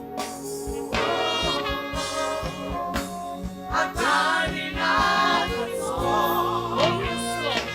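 Live gospel worship music: voices singing with band accompaniment over a drum beat.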